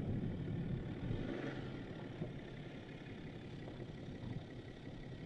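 BMW X5 xDrive30d's three-litre six-cylinder turbodiesel running at low revs as the SUV crawls over rough dirt, its rumble fading over the first couple of seconds.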